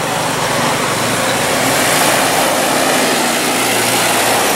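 Cab-over truck's engine running and its tyres on the road as it approaches and passes close by, a steady hum under road noise that grows louder in the first two seconds.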